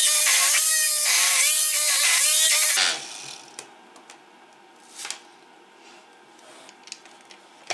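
Hand-held immersion blender running in a plastic jug of cottage cheese and currants, its motor whine rising and falling in pitch about once a second as it works through the mix. It is switched off about three seconds in, followed by a few soft handling knocks and a rustle.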